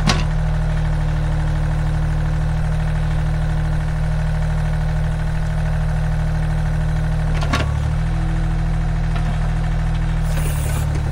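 Mini excavator's diesel engine running steadily while the hydraulics lift the boom and arm to full extension. Two brief knocks stand out, one just after the start and one about two-thirds of the way through.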